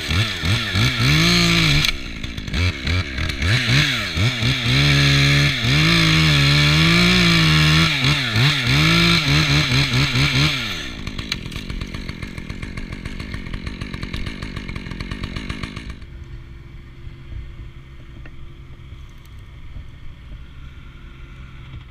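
Top-handle chainsaw cutting through Siberian elm limbs, the engine revving up and down under load for about the first half. It then drops to a quieter, steady idle.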